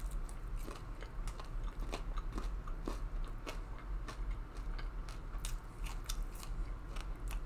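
A person biting and chewing crispy fried chicken, with irregular crunchy clicks throughout.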